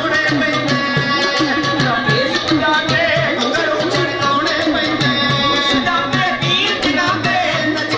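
Live Punjabi folk music: a hand drum keeps a quick, even beat under a continuous melody line.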